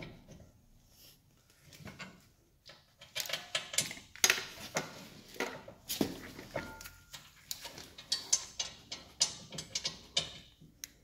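Metal clinks and knocks as a steel rear brake caliper bracket is set against the hub and its bolts are started by hand. The short, uneven clicks begin about three seconds in and go on irregularly.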